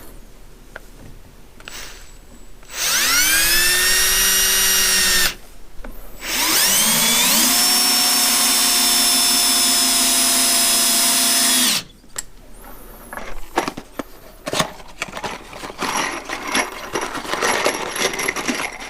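Power drill driving screws into wooden rafter braces, running in two spells: a whine that rises as the motor spins up, holds for a couple of seconds, then stops, followed by a longer run that climbs a step higher partway through. Light knocks and clatter of handling follow.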